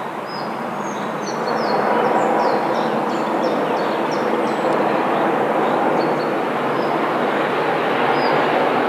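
A train running past close by, growing louder over the first two seconds and then holding steady. Birds chirp over it, mostly in the first half.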